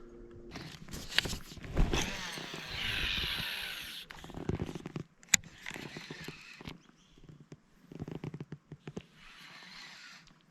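Fishing tackle in use from a boat: scattered clicks and knocks, a rushing noise for about two seconds, one sharp click about halfway through, and a quick run of clicks near the end, as a lure is cast and retrieved.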